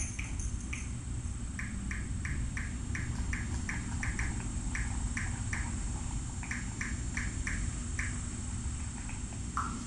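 Cat chewing dry kibble from a bowl: a steady run of small crunches, about three to four a second, with one short break and stopping shortly before the end.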